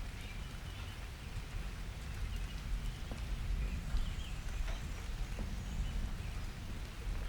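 Summer thunderstorm: rain falling, with a continuous low rumble underneath and scattered sharp drip ticks. A few faint short chirps rise above it about four seconds in.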